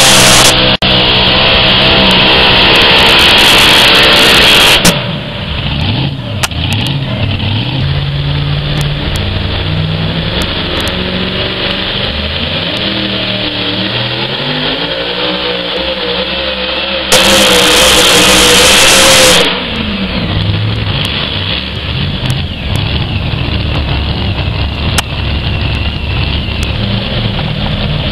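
A competition pulling vehicle's engine revving. It is very loud for about the first five seconds and again for about two seconds past the middle, and in between its note rises and falls as it revs up and down.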